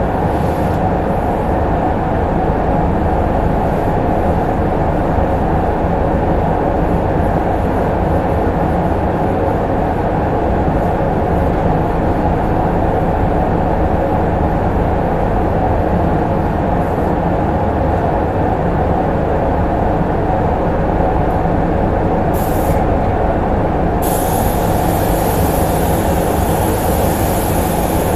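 Paint spray booth's ventilation fans running with a steady, loud drone. Near the end a short hiss of compressed air comes, then a steady high hiss as the spray gun is triggered.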